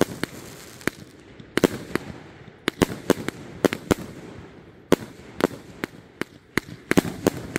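A Nightcrawler 500-gram fireworks cake firing: an irregular string of about twenty sharp bangs, a few a second, as its shots burst overhead.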